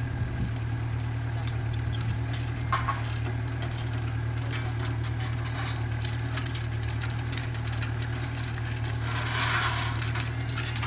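Diesel engine of an excavator idling steadily under the work, with scattered light metallic clicks and clinks from the bracket being fitted. A short hissing rush near the end.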